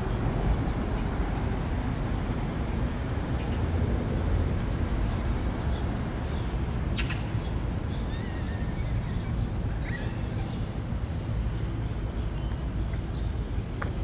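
Outdoor riverside park ambience: a steady low rumble of distant traffic with a sharp click about halfway through and a few brief bird calls.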